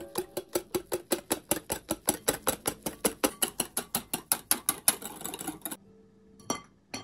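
Wire whisk beating an egg, sugar and yogurt batter in a glass bowl: quick, even clicks of the wires against the glass, about five strokes a second, stopping a little before the end. Two separate sharp knocks follow near the end.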